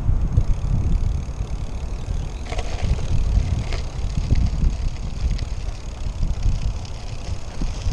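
Trek Domane AL 2 road bike rolling from pavement onto a rough gravel lot, with a steady low wind rumble on the microphone and tyre noise. A few short rattles from the bike over bumps come from about two and a half seconds in.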